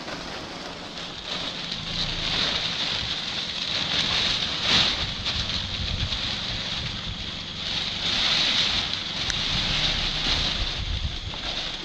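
Wind buffeting the microphone: a continuous rushing noise with a low rumble, rising and falling in strength.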